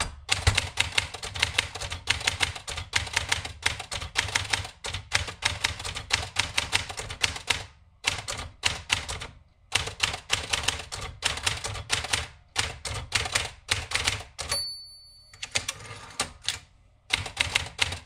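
Olympia Splendid 33 portable manual typewriter being typed on steadily: rapid, crisp key and typebar strikes in runs with brief pauses. About two-thirds of the way through, the typing stops briefly and a short high ring sounds.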